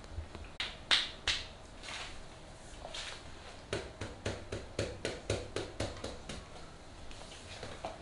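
A massage therapist's hands snapping and slapping on a client's hand and arm: three loud sharp snaps about a second in, then a quick even run of about eleven lighter slaps, roughly four a second, that stops past the middle.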